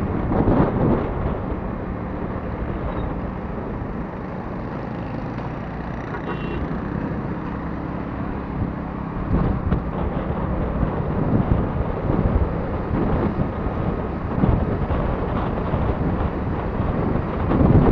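Moving motorcycle: wind buffeting the microphone in gusts over a steady engine hum and road noise.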